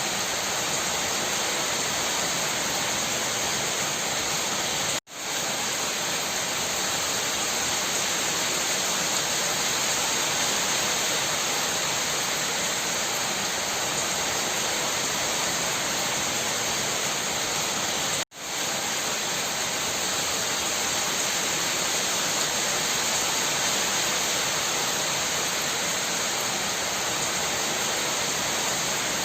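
A rain shower falling steadily, a dense even hiss of water. It cuts out for an instant twice, about 5 and 18 seconds in.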